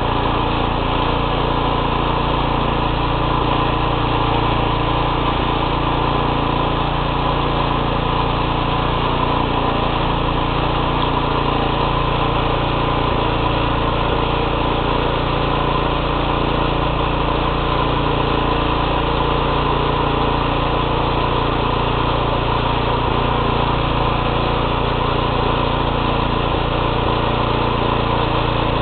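Single-axle tractor's small engine running steadily while the machine is driven, heard close up from the handlebars, at an even pitch with no revving.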